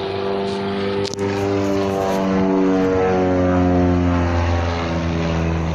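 Propeller aircraft engine droning overhead as a small plane flies past, its pitch drifting slightly and growing louder in the middle. A single sharp click about a second in.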